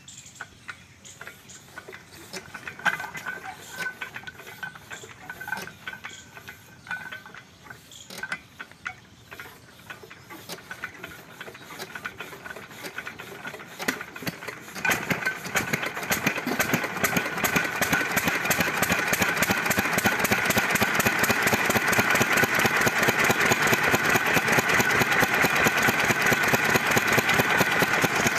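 A 1988 Delta single-cylinder stationary diesel engine is hand-cranked by its flywheel for about fourteen seconds, with irregular clicking and clanking. It then catches and runs, with a fast, even knock that grows louder and holds steady.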